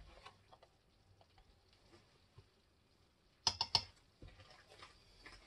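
Light handling noise of spice containers and a measuring spoon, with a quick run of three or four sharp clicks about three and a half seconds in.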